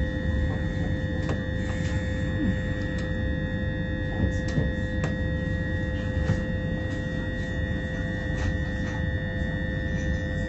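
Cabin sound of a Class 357 Electrostar electric multiple unit on the move: a steady low rumble with several steady electrical whine tones over it, and scattered light clicks and knocks.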